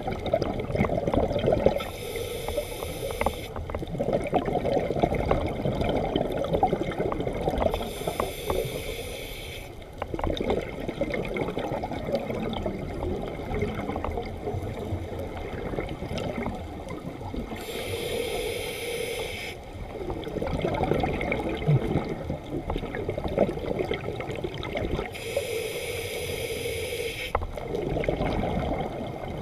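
A scuba diver breathing through a regulator underwater: four hissing inhales about six to eight seconds apart, each followed by a longer rush of bubbling exhaled air.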